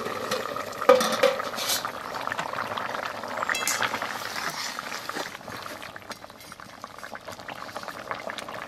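Potato-and-tomato curry bubbling at a boil in a steel pan. A metal clank comes about a second in as the steel plate lid comes off, followed by a metal spatula scraping and stirring through the curry as the potatoes are checked for doneness.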